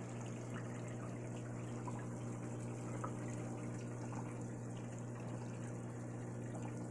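Aquarium pump running with a steady low hum while water trickles in the tank, with a few faint drips.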